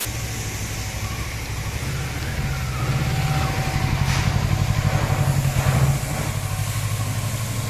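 Kawasaki Versys 650's parallel-twin engine running at low speed, a steady low pulsing engine note, easing slightly about six seconds in.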